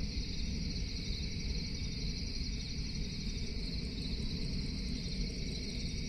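Night-time insect chorus of crickets chirping steadily in fast, overlapping trills, over a constant low rumble.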